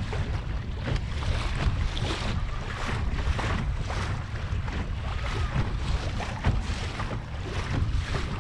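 Water rushing and splashing along the hull of a Laser Pico sailing dinghy under way, in irregular bursts, over a heavy low rumble of wind buffeting the microphone.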